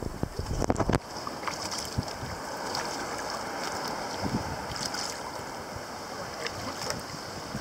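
Sea kayak paddle strokes dipping and splashing beside the hull over steady water noise, with wind buffeting the microphone in the first second.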